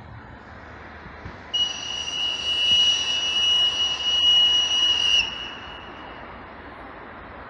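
VL10U electric locomotive's whistle sounding one long, steady, high-pitched blast of about three and a half seconds. It dips slightly in pitch as it cuts off, leaving a brief fading echo.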